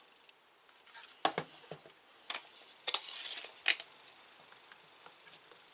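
Small hard objects being handled: four sharp clicks and knocks over a few seconds, with a short rustle in the middle.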